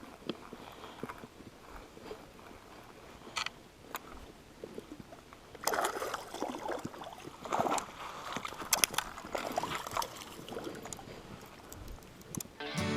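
Water sloshing and splashing in the shallows in irregular bursts as a hooked fish is brought in to the shore. Acoustic guitar music comes in near the end.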